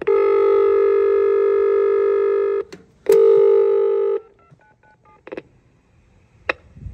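Station help-point intercom speaker sounding a long electronic beep of about two and a half seconds, then after a short gap a second beep at the same pitch lasting about a second. A few faint blips and two sharp clicks follow.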